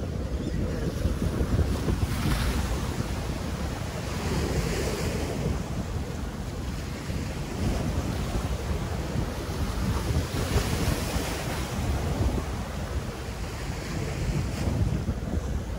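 Surf breaking and washing over jetty boulders, surging every few seconds, with strong wind buffeting the microphone.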